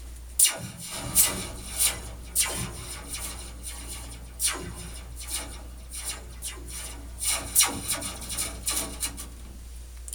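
Metal slinky hanging from sheet-metal heating and cooling ductwork, let go after being raised, giving a series of falling 'pew' laser-like zaps as it vibrates. The ductwork resonates and amplifies them. The zaps are loudest in the first two seconds.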